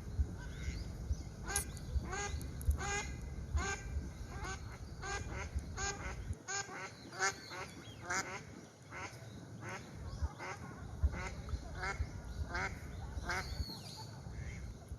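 Ducks quacking over and over, short calls following one another every half second or so, over a low rumble.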